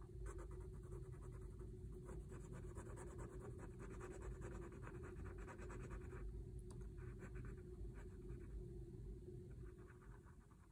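Faint scratching of a Micron PN pen's tip on a paper tile, a quick run of small drawing strokes that eases off near the end.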